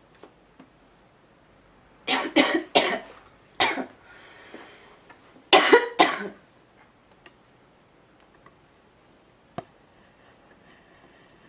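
A woman coughing in two fits: about four coughs some two seconds in, a breath, then three more about five and a half seconds in. A single sharp click near the end.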